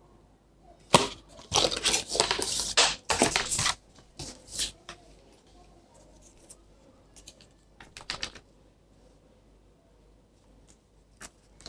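Product packaging being opened by hand: a sharp click, then a couple of seconds of tearing and crinkling, followed by scattered small clicks and rustles.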